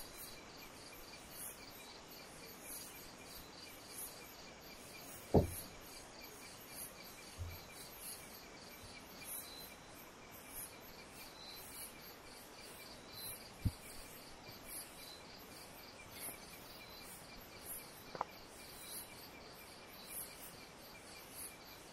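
Faint, steady chirping of crickets or similar insects, pulsing evenly, with a few soft knocks scattered through it, the loudest about five seconds in.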